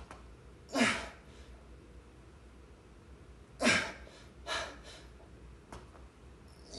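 A man breathing out hard with the effort of push-ups: a few sharp, loud breaths, some with a short grunt, the strongest about a second in and just before four seconds, with a smaller one soon after.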